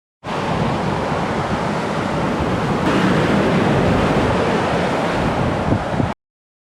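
Ocean surf washing onto a beach: a steady rush of wave noise that cuts off abruptly near the end.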